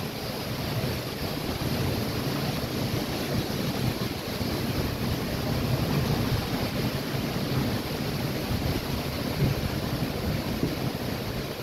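Heavy storm surf breaking against a seawall, mixed with strong typhoon wind gusting across the microphone. It is a dense, steady rush with a low rumble that swells and eases with the gusts and breakers.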